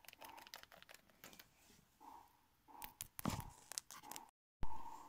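Faint clicks and taps of small plastic toy figures being handled on a wooden floor, with a louder cluster of knocks about three seconds in as the phone is moved.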